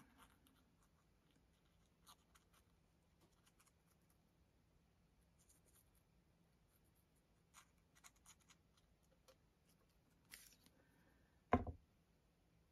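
Near silence broken by faint, scattered ticks and rustles of paper pieces being handled, with one short thump near the end.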